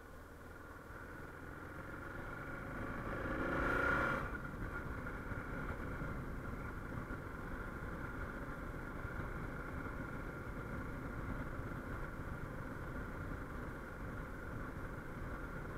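Suzuki XF650 Freewind's single-cylinder engine pulling harder, rising in pitch and loudness for about four seconds, then backing off abruptly and settling into a steady cruise. Low wind rumble runs under it.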